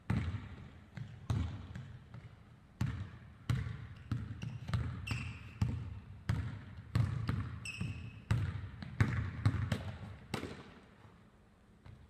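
A basketball dribbled hard on a hardwood gym floor: a quick, uneven run of bounces that echo in the big hall, stopping near the end. Two short high squeaks come about five and eight seconds in.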